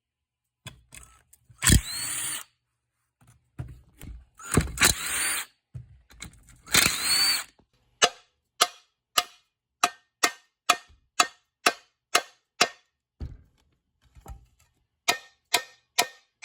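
Cordless power drill or driver spinning up and winding down in three short runs, taking fasteners out of a mower engine, followed by a string of sharp metallic clicks about two a second, with a pause before a few more near the end.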